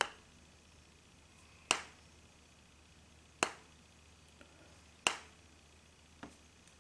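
Fine-silver tuning fork tuned to concert A (about 440 Hz) struck four times, about 1.7 seconds apart, with a smaller tap near the end. Each strike is a sharp tap that dies away quickly, leaving only a faint ring: the silver fork hits its pitch but does not ring loudly.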